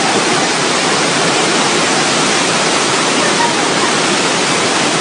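Loud, steady rush of fast-flowing floodwater.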